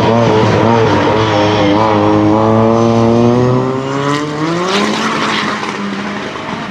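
Racing car's engine under load at a steady pitch, which rises sharply about four seconds in as the engine revs up. The sound then grows quieter as the car pulls away.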